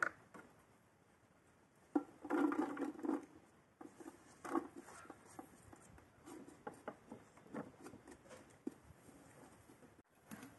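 Cooking-utensil sounds: a knife tap on a wooden chopping board, then about two seconds in a second-long pattering clatter. After that come scattered light knocks and scrapes of a long wooden spoon working in a large aluminium pot.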